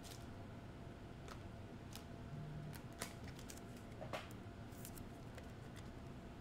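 Faint, scattered light clicks and soft rustles of trading cards being handled and stacked by hand.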